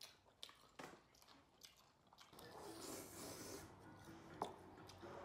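Quiet close-up chewing and biting of a person eating spicy rice cakes and fried chicken, with a few small clicks and a crunchier stretch about halfway through.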